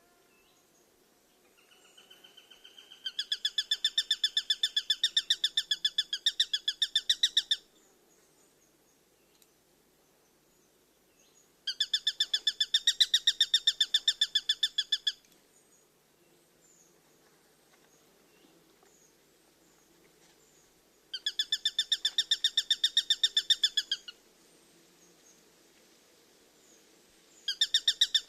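A bird singing a rapid pulsed trill in four bouts. The first starts softly and swells about three seconds in; the rest each last three to four seconds, separated by pauses of several seconds, with the last running on past the end. A faint steady low hum lies underneath.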